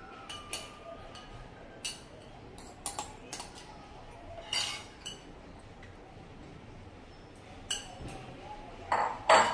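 A spoon and dishes clinking and tapping against a glass mixing bowl: a dozen or so short, scattered clicks, the loudest two close together near the end.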